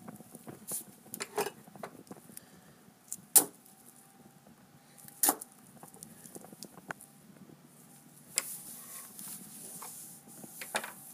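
Gloved hands handling aluminium foil on a wooden table: scattered crinkles, taps and knocks, the loudest knock about three seconds in, with a stretch of rustling near the end.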